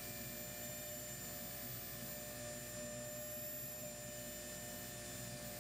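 Faint steady hum with an even hiss and a few high steady tones, unchanging throughout.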